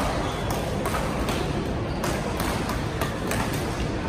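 Badminton rackets striking shuttlecocks: sharp clicks at irregular intervals, several in a few seconds, over the steady din of a busy badminton hall.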